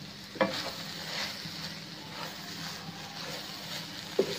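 Grated carrots cooking in ghee in a metal pan, with a steady low hum and faint hiss. A wooden spoon knocks on the pan about half a second in and again near the end as stirring starts.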